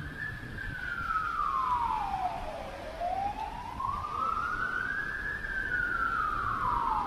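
Ambulance siren in a slow wail, its pitch sweeping smoothly up and down, about one rise and fall every five seconds, over a steady low background rush.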